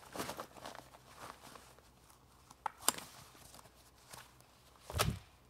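Footsteps through the forest floor, irregular steps with a sharp click about three seconds in and a heavier thump near the end.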